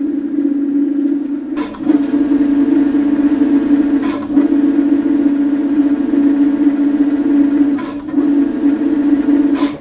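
Steady, loud whine from the electric scooter's spinning rear wheel and disc brake, broken by short clicks three or four times and stopping suddenly at the end. The whine comes while the rear brake is being adjusted because it had been rubbing and squealing.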